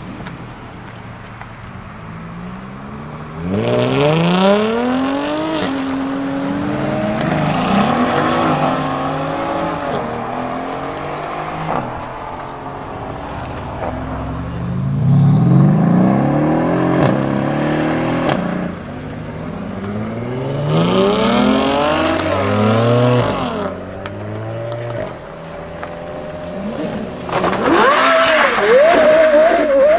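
Supercar engines revving and accelerating away one after another, about five in turn, each a sharply rising engine note through the gears; the last, near the end, is the loudest and holds a high, wavering note.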